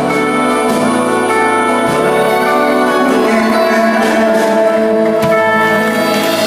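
Live country band playing an instrumental passage with no singing: sustained chords from fiddle, electric guitar and bass, changing a few times.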